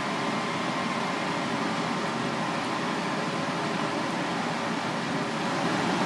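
Steady, even background noise of ventilation, with no distinct knife strokes standing out.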